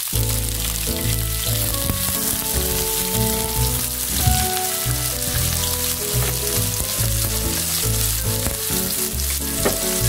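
Shallots, garlic and galangal sizzling as they fry in hot oil in a frying pan, stirred now and then with a spatula. Background music with steady changing notes plays underneath.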